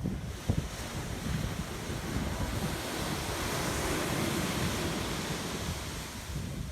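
Waves breaking on a sandy beach: the wash of one wave swells to a peak about halfway through and fades. Underneath, wind buffets the microphone in low rumbles, with one sharp gust about half a second in.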